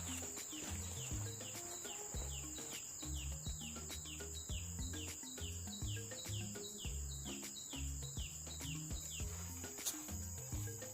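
Background music with a stepped bass line, over a steady high-pitched insect drone. A run of quick descending chirps, about three a second, stops about nine seconds in.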